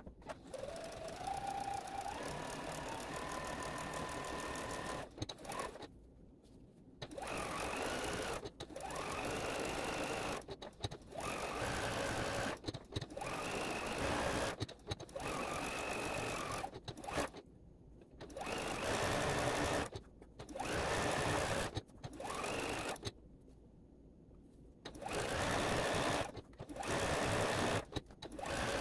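Juki DX7 sewing machine stitching interfacing onto appliqué fabric, running in about a dozen short spurts of a second or two with brief stops between. The motor climbs in pitch as it gets up to speed on the first, longest run.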